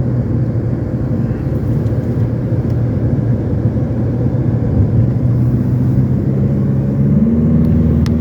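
Car engine and tyre noise heard from inside a moving car: a steady low hum that changes pitch about seven seconds in.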